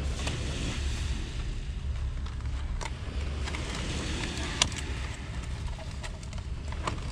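Steady low rumble of wind on the microphone, with a few light clicks of handling and one sharper click about four and a half seconds in.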